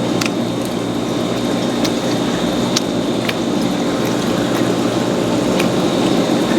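Close-miked wet chewing and squelching of a mouthful of seafood, with a few sharp clicks scattered through it.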